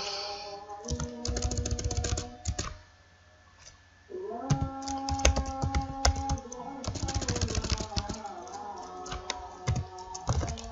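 Computer keyboard keys clicking in quick runs while text is typed and deleted, with a pause of about a second near the middle. A sustained pitched sound, held for about two seconds, overlaps the clicking just after the pause.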